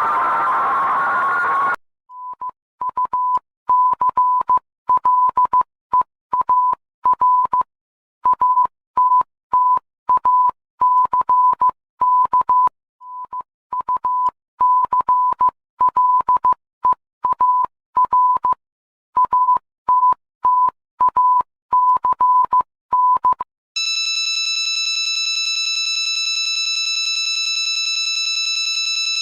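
Electronic alert tones: a single beep tone keyed on and off in irregular short and long beeps, like Morse code, for about twenty seconds, then a steady, buzzy alarm tone from about four-fifths of the way in. Music plays for the first two seconds.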